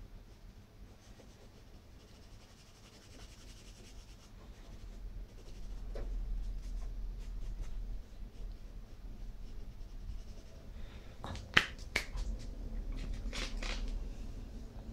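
Faint dry rubbing of fingertips blending soft pastel into textured paper. About two-thirds of the way through come several sharp clicks and taps.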